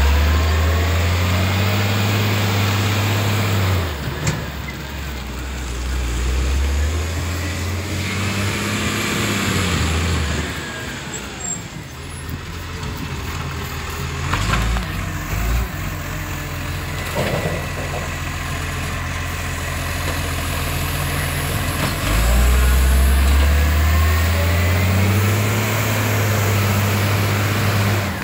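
Garbage truck's diesel engine idling and revving up several times, loudest near the start and again near the end, with a few brief air-brake hisses in between.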